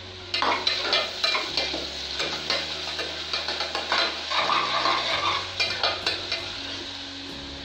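Sliced onions sizzling in hot oil in a pressure cooker, frying toward light golden, while a metal spoon stirs and scrapes them. The spoon clinks often against the pot.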